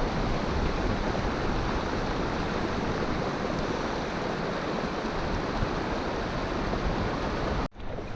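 Steady rush of flowing stream water. It cuts off abruptly near the end and resumes as a fainter stream sound.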